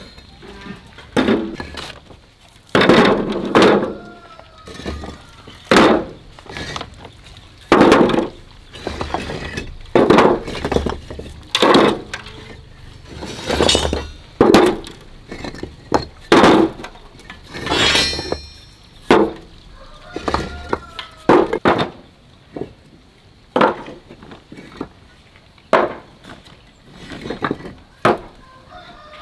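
Red clay bricks being loaded one by one into a steel wheelbarrow. Each brick lands on the others with a sharp clinking knock, about one every second or two.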